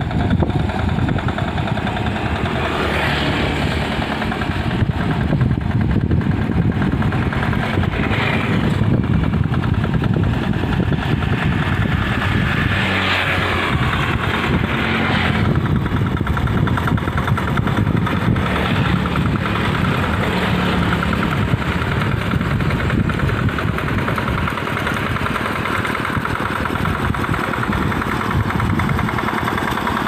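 Two-wheel hand tractor's single-cylinder diesel engine running steadily under load as it ploughs a flooded rice paddy.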